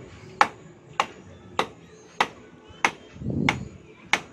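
Hammer nailing a 2x3 timber brace onto the wooden shoring, with about seven steady blows roughly every half-second, each giving a short metallic ring.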